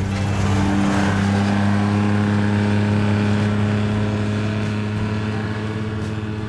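Engine of a utility vehicle running with a steady hum, slowly fading toward the end.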